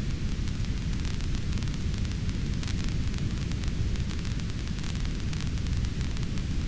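Fireplace fire crackling: a steady low rumble of burning with many small, irregular crackles and pops.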